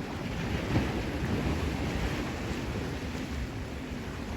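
Sea waves washing against the shore, with wind buffeting the microphone; the surge swells briefly about a second in.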